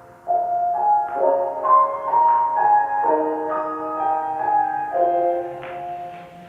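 Lo-fi instrumental music: soft keyboard (piano-like) notes and chords that change about once a second, coming in just after the start and fading out near the end.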